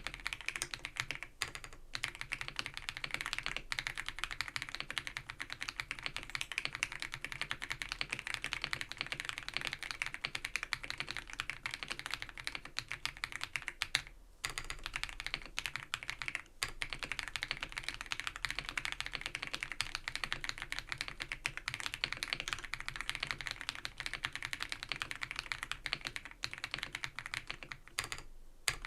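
Continuous fast typing on an ABKO AK100 mechanical keyboard with non-clicky Baby White switches, a dense run of keystrokes broken by a few brief pauses. The stroke sound has a slight scratchy edge and little hollow ringing from the housing.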